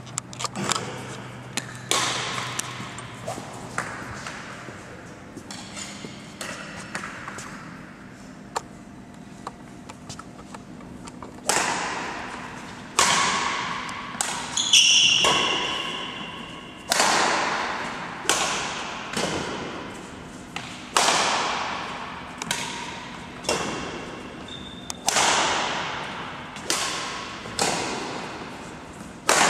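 Badminton rally: rackets striking a shuttlecock, each hit a sharp crack that rings on in the echoing sports hall. The hits are softer and sparser at first and come about every second or two in the second half, with a brief high squeak about halfway through.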